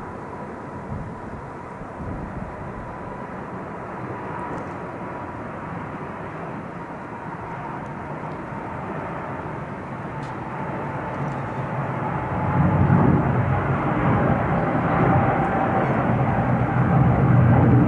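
Jet engine noise from a Boeing 777's twin GE90 turbofans at takeoff thrust as the airliner lifts off and climbs out: a steady rushing noise with a whining tone that slowly drops in pitch. It grows louder and deeper from about twelve seconds in.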